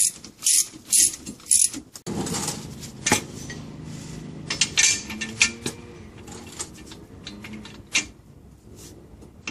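A ratchet wrench clicking in short strokes about twice a second as it runs the pinion nut onto a Dana 35 pinion. About two seconds in, this gives way to metal creaks, scrapes and sharp clicks as a long bar is pulled against the steel yoke-holding bracket to tighten the nut.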